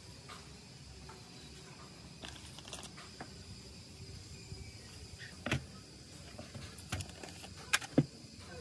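Paper towel rustling as hands wrap and smooth it around laminator rollers, with a few sharp knocks of a roller being handled in a plastic tub; the two loudest knocks come close together near the end.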